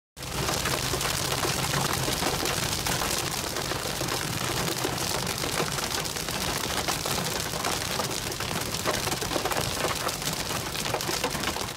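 Storm precipitation pelting a car in a dense, continuous patter of many small hits, with a low hum underneath that fades out about halfway.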